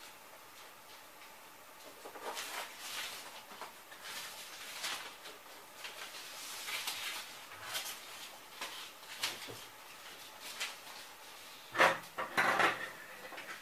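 A strip of kraft paper tape being unrolled and handled, with scattered papery rustles and crinkles, then a louder clatter of a few knocks near the end.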